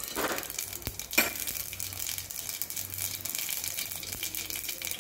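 Mustard seeds sizzling and crackling in hot oil in a kadai, a steady hiss full of tiny pops with a louder flare-up about a second in, as the seeds splutter during tempering (vaghar).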